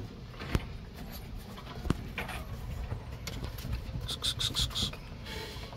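Puppies scuffling and playing on wooden floorboards, with sharp knocks against the planks. A quick run of about five short, high squeaks comes about two-thirds of the way through.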